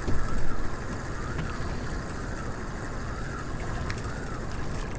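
Steady wind and water noise around a small open boat at sea, with a short louder bump right at the start.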